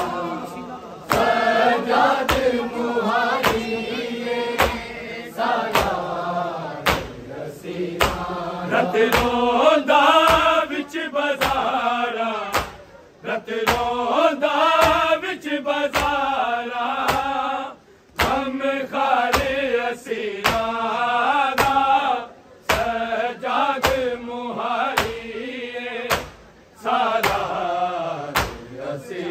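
Men chanting a noha, a Muharram lament, in unison, over a steady beat of sharp slaps from rhythmic chest-beating (matam). The slaps come about every three-quarters of a second, and the singing breaks off briefly between lines.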